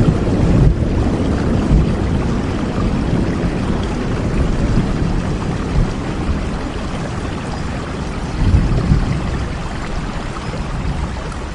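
Steady rain, a dense even hiss with a heavy rumbling low end. It swells briefly about eight and a half seconds in, then slowly grows quieter toward the end.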